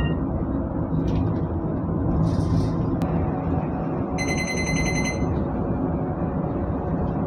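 Steady low rumble of a public bus driving, with engine and road noise heard from inside the cabin. About four seconds in, a brief high electronic chime sounds for about a second.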